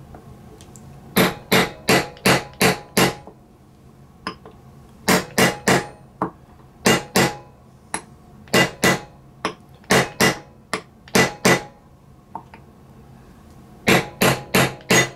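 Hammer taps on a tool fitted over a bearing, driving it down into an RC transmission case: sharp taps in quick runs of three to five, with short pauses between the runs, as the bearing is eased in until it seats flush.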